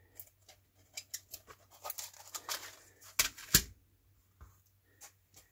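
Plastic SMD component carrier tape being handled and peeled off its reel: small scattered clicks and crinkly rustles, then two louder knocks close together a little past three seconds as the reel is set down, and a few faint ticks after.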